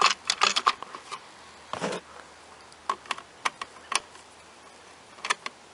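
Small clicks and ticks of a Torx bit driver and screws being worked on a plastic mower switch housing: a quick cluster of clicks at the start, a brief rustle, then single ticks every half second or so.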